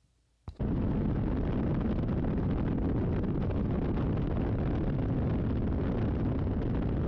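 Steady rushing wind noise on a camera microphone, heavy and low, with vehicle rumble under it, starting abruptly about half a second in: the sound of riding footage on a motorcycle.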